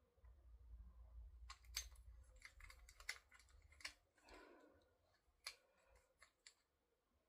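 Faint, irregular metallic clicks and clinks of a torque wrench being adjusted and handled, with a brief soft rustle near the middle.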